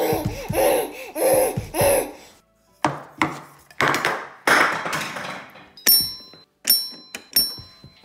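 A baby's squealing babble, then a run of knocks and bangs as she slaps things on a high-chair table. Near the end come sharp strikes on a toy xylophone's metal bars, each ringing briefly.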